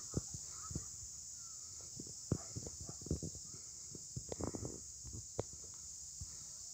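A steady high-pitched insect chorus, with irregular low knocks and thumps from the handheld phone being moved about, and a few faint short chirps.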